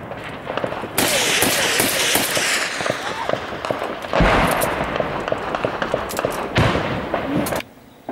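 Gunfire in battle: scattered rifle shots cracking throughout, with three heavy blasts about one, four and six and a half seconds in, each followed by a long rolling echo. Brief shouts come through between the shots, and the sound cuts off sharply near the end.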